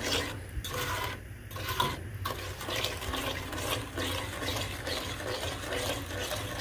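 A spatula stirring a wet, thick mixture of melted butter, milk, sugar and cocoa in a pot, in irregular sloshing, scraping strokes, over a steady low hum.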